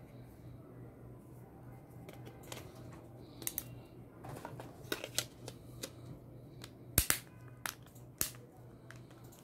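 Plastic battery and back cover of a Bengal BG03 BD flip phone being handled and fitted: scattered light clicks and taps, then a few sharp snaps about seven to eight seconds in as the cover is pressed into place.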